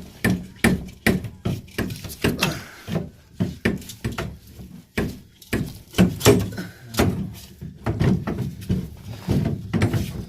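Repeated dull knocks, about two to three a second at an uneven pace, as of something being struck or worked against during drain pipe work.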